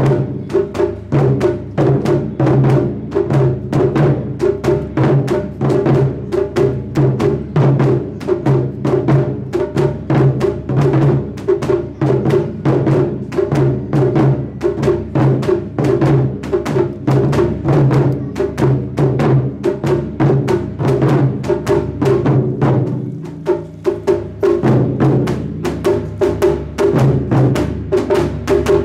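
Taiko ensemble beating nagado-daiko barrel drums with wooden bachi: fast, driving strikes in a powerful rhythm. The beat thins briefly a little after twenty seconds in, then comes back in full.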